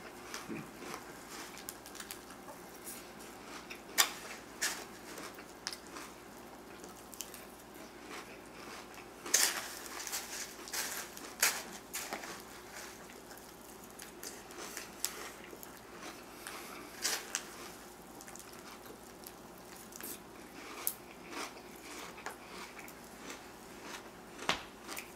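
A person eating crispy rice cereal with milk from a plastic container: scattered, irregular clicks and scrapes of a spoon against the plastic, with chewing and wet slurping between them.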